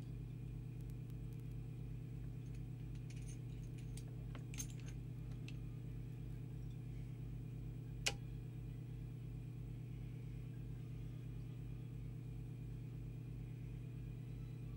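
Steady low mains hum from powered-up transformers feeding a valve transceiver at half voltage. A few faint metallic clinks come about three to five seconds in, and one sharp click about eight seconds in.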